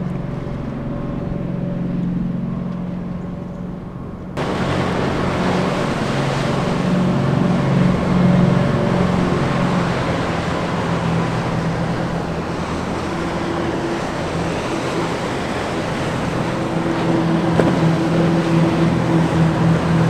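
Twin Ilmor 5.3-litre V8 sterndrive engines of a Formula 290 Bowrider running under power, with a steady drone whose pitch shifts as the boat turns and speeds. About four seconds in, a rush of wind and water noise comes in suddenly and stays under the engines.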